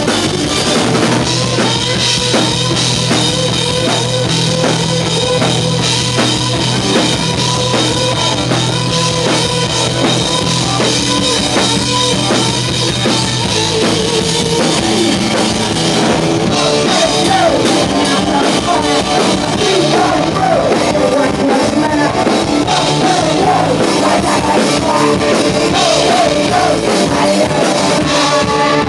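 A live punk rock band playing loud: electric guitar and a driving drum kit, with the bass line shifting about halfway through.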